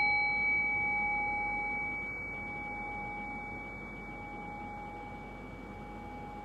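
Meditation bell ringing out after a single strike, its clear tone slowly fading, with a slow waver in the lowest note.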